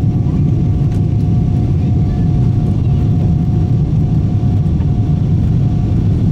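Steady loud rumble of a Boeing 777-300ER's GE90 jet engines and airflow, heard inside the passenger cabin, with a thin steady tone above the deep rumble.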